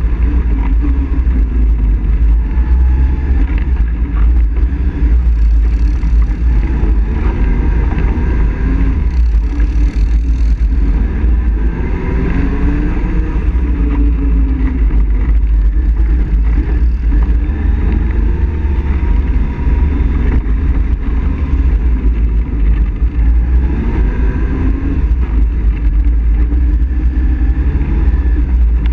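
ATV engine running as the quad rides a dirt trail, its pitch rising and falling with the throttle, over a heavy low rumble.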